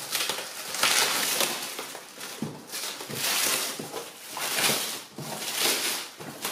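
Clear plastic stretch wrap being torn and pulled off a cardboard box, crinkling and crackling in repeated bursts.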